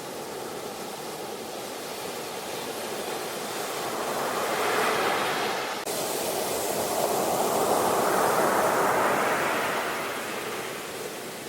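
Ocean waves breaking on the shore as a steady rushing surf. One wave swells about halfway through and a bigger one follows, peaking and then ebbing toward the end. There is a brief sharp break in the sound just before the middle.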